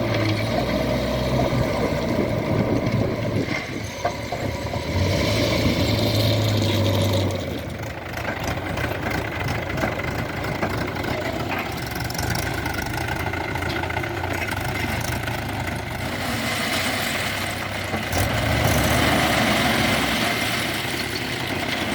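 Diesel engines of a JCB 3DX backhoe loader and farm tractors running at work, the revs and loudness rising and falling a few times.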